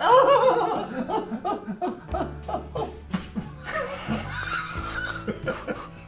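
A woman and a man laughing together, loudest right at the start and then in shorter bursts of chuckling, over background music.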